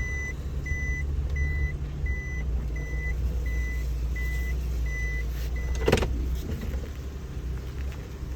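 Suzuki Every DA64W van idling, its reverse warning beeping steadily, a short tone less than twice a second, which stops about five and a half seconds in. Just after the beeping stops comes one brief loud noise.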